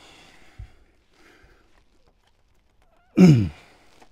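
A man's short, loud grunt of effort, falling in pitch, about three seconds in, as he strains to push a motorcycle carburettor bank into its inlet rubbers; faint handling noises before it.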